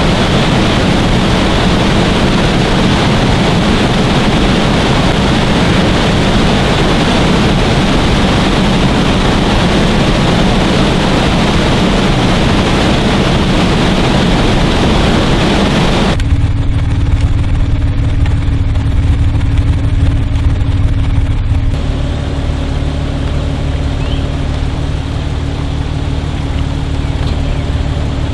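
Steady rush of floodwater pouring over a lake spillway. About halfway through it cuts off suddenly, and a vehicle engine idles in its place, heard from inside the cab.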